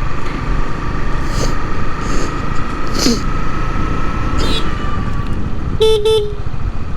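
Motorcycle riding along a road, with steady engine and wind rumble. Near the end a vehicle horn gives two quick toots.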